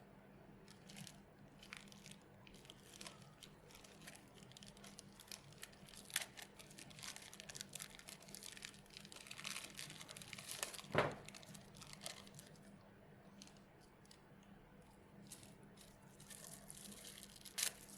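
Faint rustling and crinkling of packaging and accessories being handled, with scattered light clicks and one louder knock about eleven seconds in.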